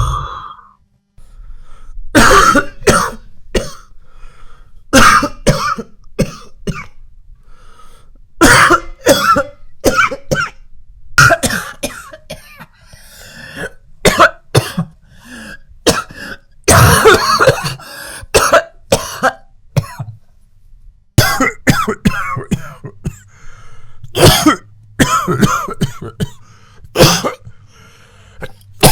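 A person coughing over and over, in clusters of several short coughs with brief pauses between.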